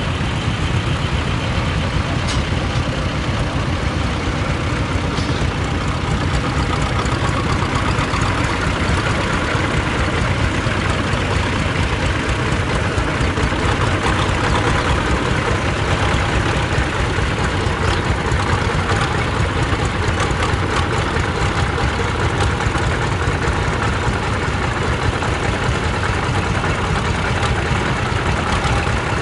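Small tractor diesel engines, chiefly Vladimir T-25s with their air-cooled two-cylinder diesels, running steadily at low revs with a rapid, even low chug.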